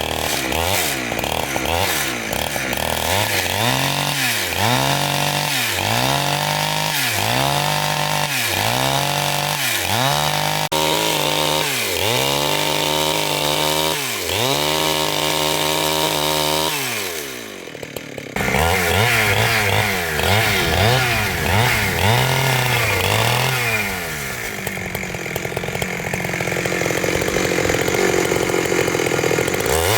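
Two-stroke chainsaw cutting through large wood. The engine's pitch dips and climbs back about once a second as the chain loads and frees. The engine briefly drops off just past the middle, then runs at a steadier high speed near the end.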